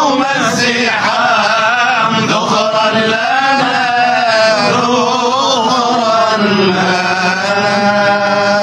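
Men's voices chanting a Sufi inshad in melismatic style, with the melody winding up and down. The chant settles into a long held note near the end.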